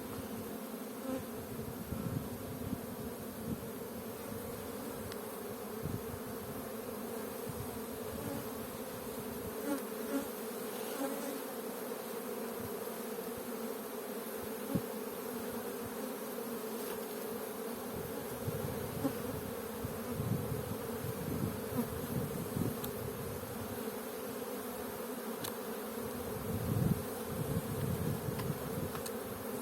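Honeybees buzzing as a steady hum around an open hive during a frame inspection, with a few low bumps from handling.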